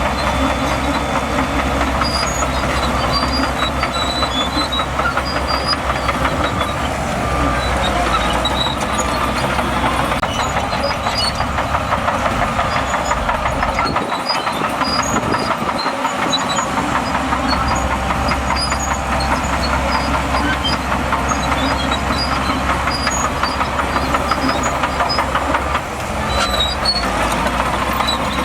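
Shantui DH17C2 crawler bulldozer working: its diesel engine running steadily under load while the steel tracks clank and rattle. The deep engine rumble briefly thins out about halfway through.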